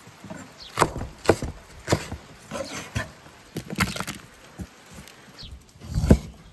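Cleaver chopping on a wooden cutting board: about eight irregular knocks as peppers and then pork belly are cut. The heaviest, deepest stroke comes about six seconds in, as the blade goes through the pork.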